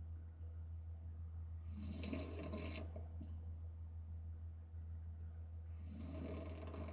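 A woman snoring through an open mouth: one snore about two seconds in and another near the end, some four seconds apart, over a steady low hum.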